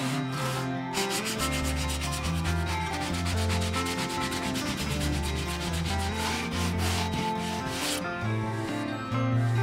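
Hand sanding of wooden boards with sandpaper on a block, in quick back-and-forth strokes. The rapid rasping starts about a second in and stops near the end.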